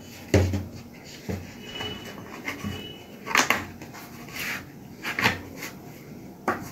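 Cardboard product box being handled and slid open: a couple of light knocks in the first second or so, then several short scraping rubs of cardboard.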